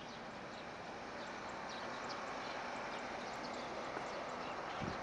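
Road traffic noise that swells slowly as distant trucks come up the road, with short, scattered bird chirps over it.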